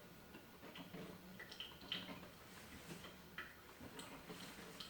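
Coffee maker brewing quietly: faint, irregular ticks and drips over a low steady hum.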